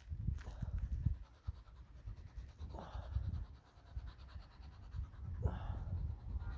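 Dog panting rapidly with its mouth open, over a steady low rumble.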